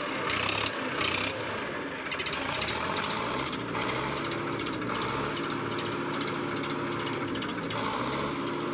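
Diesel tractor engine running hard under heavy load in a tug-of-war pull, its note steady with a couple of brief dips in pitch.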